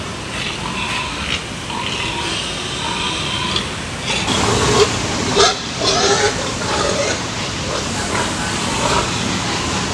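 Farm pigs grunting and calling, with a few louder, sharper calls around the middle, over a steady noisy background.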